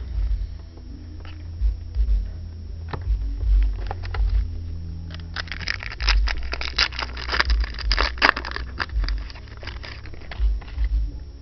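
Chromium trading cards and their foil pack being handled close to the microphone: scattered ticks and low handling thumps, then a few seconds of dense crackling rustle from about halfway in.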